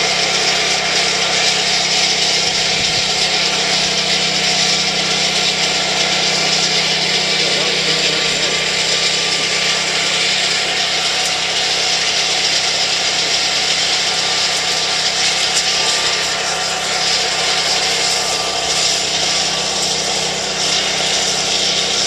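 1977 Wheel Horse C-120 garden tractor's engine running steadily with its snowblower attachment churning snow, a continuous mechanical whir and rattle over a low engine hum.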